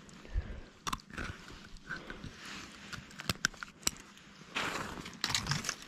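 Close handling noises as a walleye is unhooked with pliers: a scatter of sharp metal clicks and rustles, with two short hissing bursts near the end.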